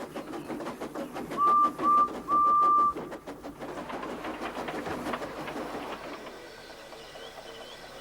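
Steam locomotive chuffing at a quick, even beat while its whistle blows two short toots and one long one, the loudest sound here. The chuffing fades, and a few faint bird chirps follow near the end.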